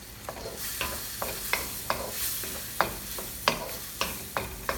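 Tomato and egg stir-fry sizzling in a frying pan while a utensil stirs it, knocking sharply against the pan about twice a second.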